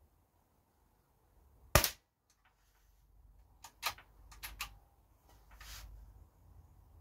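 A single shot from a moderated JS200 air rifle: one short, sharp crack about two seconds in. Several quieter clicks and knocks follow in the second half.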